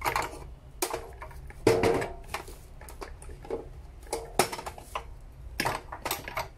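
Irregular metallic clatter and knocks as a plastic-pipe fusion welder's folding metal stand and power cord are handled and packed into its steel carrying case, the loudest knock about two seconds in.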